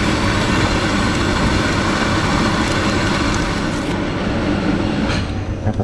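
Franke bean-to-cup coffee machine running its caffè latte cycle: a loud, steady mechanical whirr that thins out about four seconds in, with a click just after five seconds.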